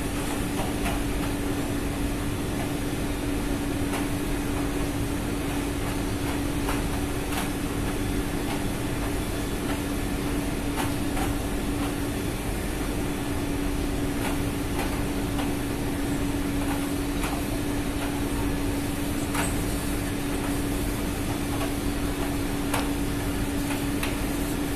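Ship's machinery running steadily: a constant hum at one unchanging pitch over a steady rumble, with faint occasional clicks.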